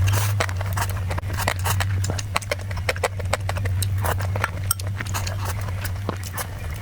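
Close-miked eating sounds: irregular sharp clicks and smacks of chewing and mouth noises, over a steady low hum.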